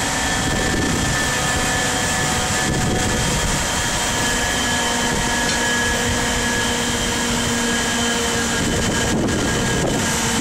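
Steady drone of heavy machinery with several thin whining tones on top, and a lower whine joining about four seconds in.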